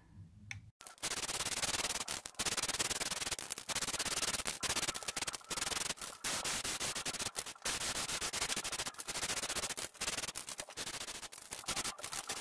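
Aerosol spray-paint can spraying: a steady hiss that starts about a second in and breaks off briefly several times as the nozzle is let go and pressed again.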